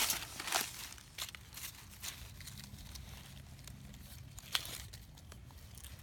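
Dry leaf litter crackling and soil scraping as a hand and a knife dig around a mushroom button in the ground. There are several crackles in the first second and one sharp crackle about four and a half seconds in.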